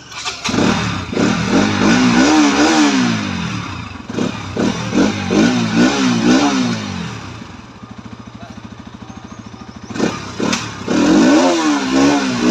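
Bajaj Pulsar NS200's single-cylinder engine revved in a series of throttle blips, the pitch rising and falling each time. It drops back to a steady idle about seven and a half seconds in, then is blipped again near the end, on a test run with its new air filter fitted.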